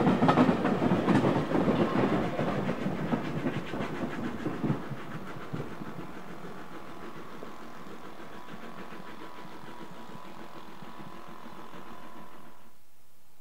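Heritage railway passenger carriages rolling past, their wheels clattering over the rail joints, the sound fading away over about five seconds as the train recedes. A faint steady background with a thin tone follows, then cuts off suddenly near the end.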